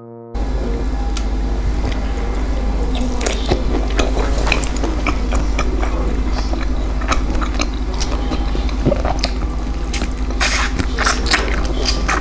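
Close-up eating sounds: roasted lamb rib meat being bitten, torn off the bone and chewed, many small wet clicks and smacks. A steady low hum runs underneath. Background music cuts off just at the start.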